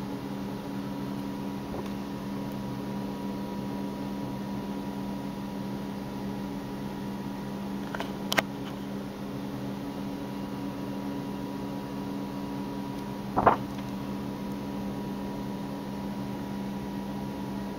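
Steady electrical hum, broken twice by short rustles of art-book pages being turned by hand, about eight and thirteen seconds in.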